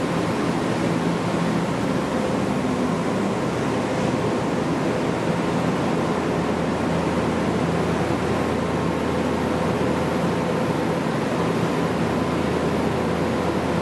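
Steady ambient noise in an enclosed station passageway: an even rushing sound with a faint low hum that fades in and out.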